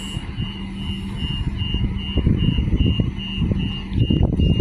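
3000-class diesel railcar standing at a platform, its engine idling under a high electronic warning beep that repeats about three times a second, typical of a train's door-closing warning. The beeps stop near the end as the engine gets louder.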